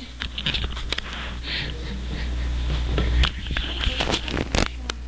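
Handling noise from a camera microphone being rubbed, bumped and covered: scattered clicks and knocks over a steady low hum.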